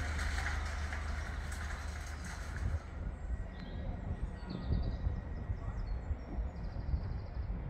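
Railway station platform ambience. A steady low hum changes about three seconds in to gusty wind buffeting the microphone, with a few faint high chirps.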